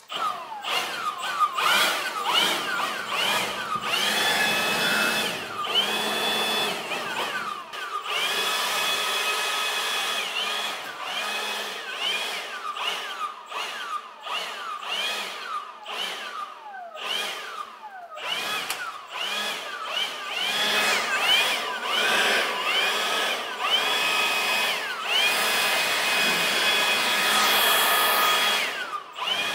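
Leaf blower blowing dust off walls, revved up and let off over and over: its whine rises to a steady high pitch, holds for a moment, then falls away, with the longest steady run near the end.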